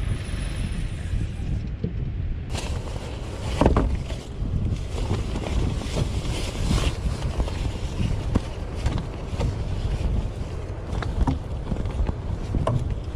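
Strong wind buffeting the microphone in heavy rain: a loud, gusty rumble with scattered sharp taps and knocks. The sound changes abruptly about two seconds in.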